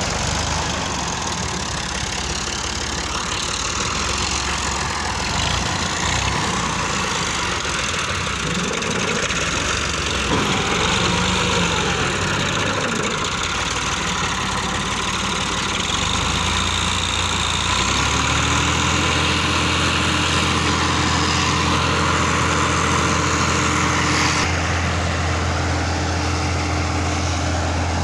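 Farm tractor's engine running as it drives the hydraulics that tip a loaded trailer, raising the bed to dump sand. About two-thirds of the way in the engine note settles into a steady, even drone.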